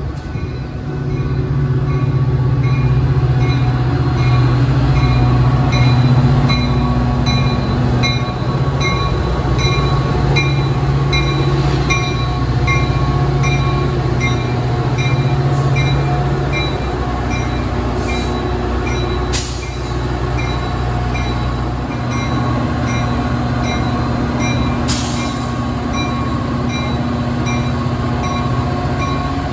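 Metra EMD F40PH diesel locomotive running as it hauls a commuter train past, its engine drone loudest in the first half, with steel wheels on rail. A level-crossing bell dings steadily throughout, and there are two sharp metallic clanks in the second half.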